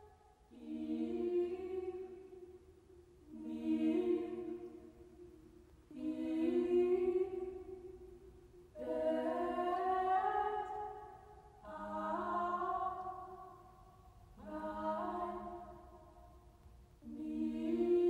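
Recorded dance music: voices singing sustained chords a cappella in slow, repeated swells, seven of them, each rising and fading about every three seconds.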